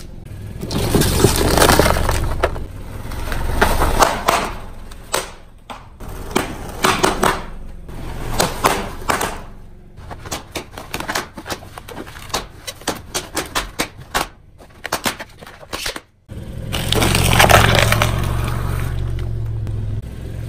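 A car tyre rolling slowly over objects on concrete and crushing them, with crackling and breaking over the car's low rumble, at the start and again near the end. In between comes a run of short, sharp crackles and clicks.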